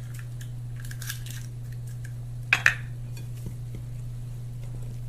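An egg being cracked against the rim of a mixing bowl: two or three quick, sharp taps about two and a half seconds in, after a few faint clicks. A steady low electrical hum runs underneath.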